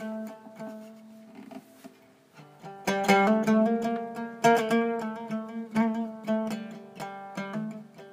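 Solo oud playing a melody of plucked notes. It softens about a second in and comes back with strong plucks about three seconds in.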